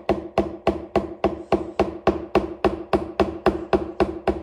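Hammer tapping a part into place: a steady run of quick, even taps, about four a second, each with a short ringing note.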